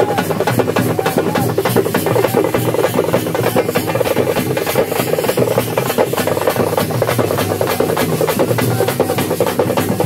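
Loud, fast, unbroken drumming from a group of procession drums.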